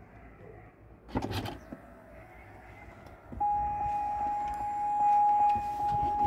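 Chevrolet Corvette C6 driver door being opened with its electronic door release: a sharp click about a second in as the latch lets go. From about three and a half seconds, a steady warning chime sounds with a regular pulse while the door stands open.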